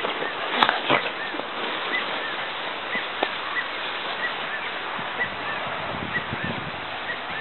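An animal calling in short, high chirps that repeat about twice a second over a steady hiss, with two sharp knocks about a second in.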